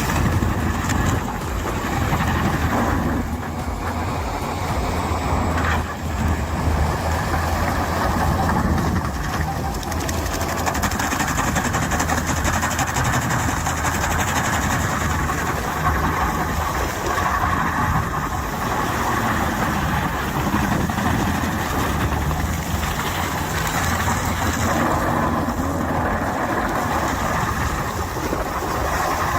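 Heavy machine engine running steadily, with a dense mechanical noise and no pauses.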